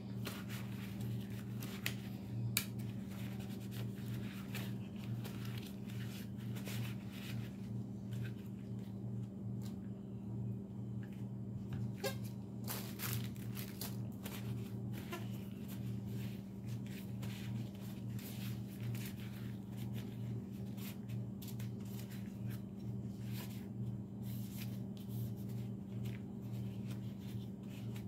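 Cloth rubbing and wiping on a pistol's metal slide, with irregular light clicks and rustles as the parts are handled, over a steady low hum.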